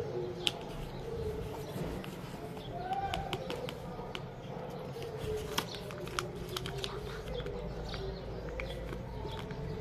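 Paper being handled on a tabletop: scattered light taps, clicks and crinkles from paper finger-claws and a folded paper packet.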